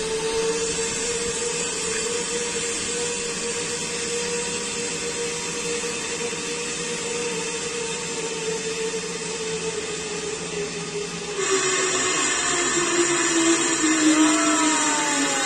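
Zipline trolley pulleys running along the steel cable, a steady whirring whine with hiss. After a cut about 11 seconds in, the whine falls steadily in pitch.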